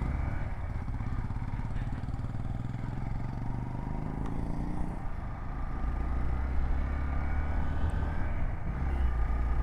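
Hero XPulse 200 motorcycle's single-cylinder engine running as the bike is ridden, the engine note picking up about halfway through.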